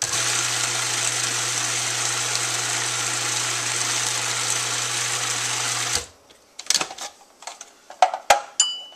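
Countertop food processor motor running steadily for about six seconds as it blends frozen raspberries and cream into ice cream, then cutting off abruptly. A few plastic clicks and knocks follow as the lid is handled.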